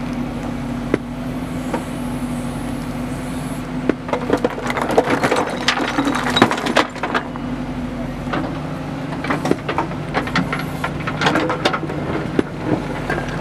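JCB backhoe loader's diesel engine running steadily while stones knock and clatter against the bucket and each other, in a busy run of knocks from about four seconds in until near the end.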